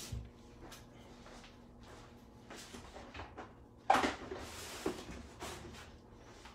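Someone moving about a small room, fetching a container: faint scattered knocks and rustles, with one sharp clunk about four seconds in and a smaller one a second later.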